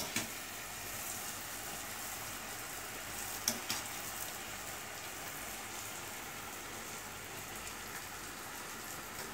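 Zalabya dough balls deep-frying in a pan of hot oil: a steady sizzle, with a brief tap about three and a half seconds in.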